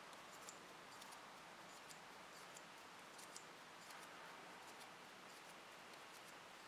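Near silence, with faint small ticks and rustling from thread being worked into double-stitch knots with a tatting shuttle.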